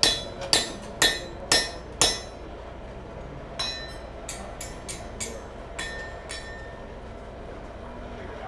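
Hammer striking steel with a ringing clang: five strong blows about half a second apart, then a run of lighter, irregular taps that stop a little past the middle.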